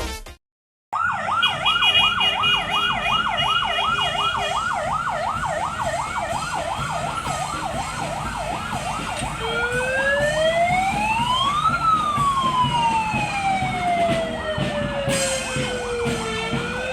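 Vehicle siren sounding in a fast warbling yelp for several seconds, then switching to a slow wail that rises, falls and begins rising again.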